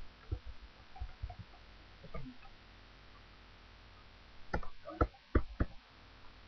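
Computer keyboard being typed on in short runs of sharp keystrokes, with a louder run of taps about four and a half seconds in.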